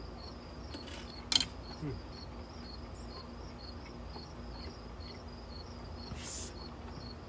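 Crickets chirping steadily, about three chirps a second, over a faint low hum. A single sharp click stands out about a second in, and a short hiss comes near six seconds.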